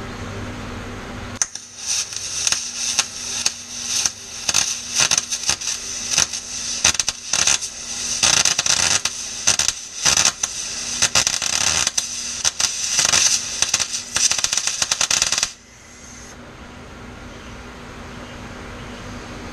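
Eastwood MIG welder laying a bead on the steel axle housing: an arc crackling in a string of short runs, starting about a second and a half in and cutting off suddenly near the end. The welder is turned up and struggling to penetrate the thick axle. A steady hum runs before and after the welding.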